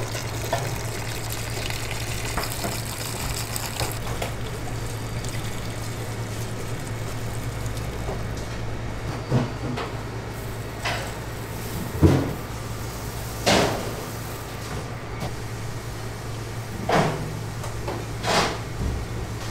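Steady low hum and a water-like hiss, like kitchen ventilation and running water. About five sharp knocks or clatters come in the second half, the loudest about twelve seconds in.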